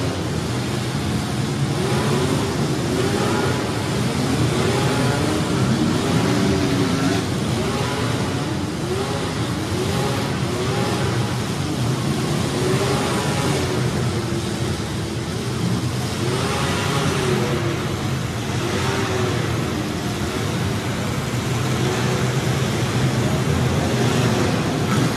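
Several demolition-derby compact cars' engines revving at once, their overlapping pitches rising and falling as the drivers throttle up and back off.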